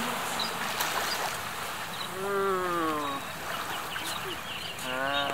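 A young child's high voice giving two long, drawn-out calls: the first about two seconds in, sliding slowly down in pitch for about a second, the second starting near the end. Under them runs a steady hiss of gentle surf, with faint high bird chirps in between.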